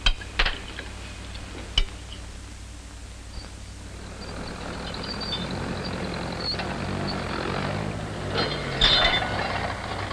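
Farm tractor engine running and growing louder, its pitch wavering, after a few sharp clicks near the start.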